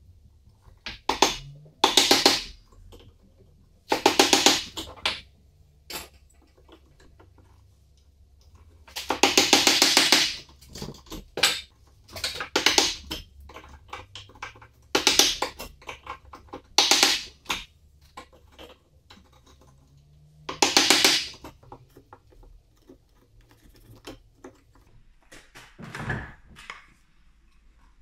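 Wood chisel pushed by hand into a quartersawn beech block: about ten separate scraping cuts, each lasting up to a second and a half, with short pauses between.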